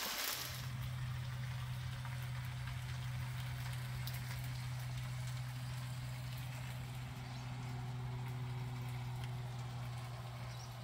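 Rosemary lamb chops sizzling and crackling in a frying pan over a camp stove, with a steady low hum underneath.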